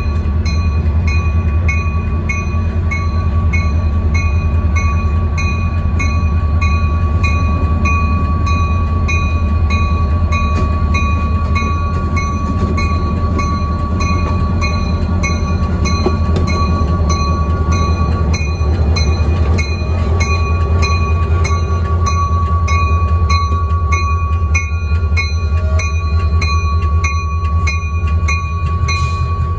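Soo Line 700 diesel locomotive's engine running with a steady low rumble as the unit rolls slowly up and past, with a steady high tone over it. A rapid, evenly spaced high ringing repeats about two to three times a second throughout.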